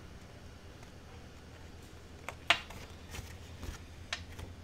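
Small craft scissors snipping red cardstock a few times as envelope flap corners are trimmed, with the paper handled between cuts; the sharpest snip comes about two and a half seconds in.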